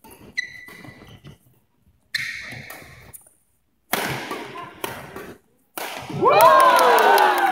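Badminton rally on a wooden court floor: racket hits on the shuttlecock and short squeaks of court shoes. About six seconds in, spectators break into loud cheering and shouting as the rally ends.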